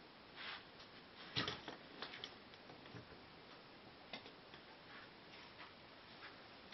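Near-silent room tone with faint, irregularly spaced clicks and taps, and one louder knock about a second and a half in.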